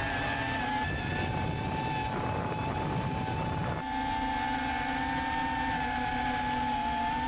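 FPV quadcopter's motors and propellers whining steadily in flight, heard from a camera mounted on the drone, with abrupt changes in tone about a second in and again at about four seconds.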